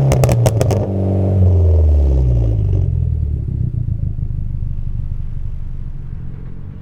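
Tuned Mitsubishi Lancer Evolution X's 2.0-litre turbocharged four-cylinder letting off, with about five sharp exhaust pops in quick succession in the first second. Then the engine note falls in pitch as the revs drop and settles into a low rumble that slowly grows quieter.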